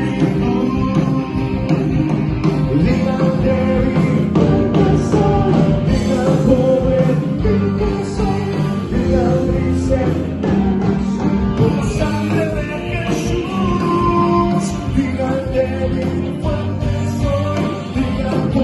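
Worship band playing a song live at rehearsal, with singing over the band and a steady beat of percussive hits.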